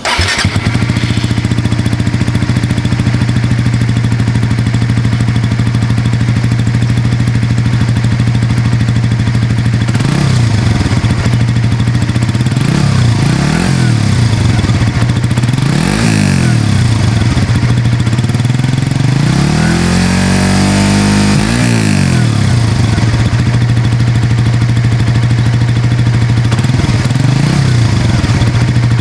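Suzuki GSX-S150 motorcycle's single-cylinder engine through its stock exhaust, bursting into a steady idle at the start. After about ten seconds the throttle is blipped several times, the revs rising and falling quickly, with one longer rev about two-thirds of the way through, then settles back to idle with a last small blip near the end.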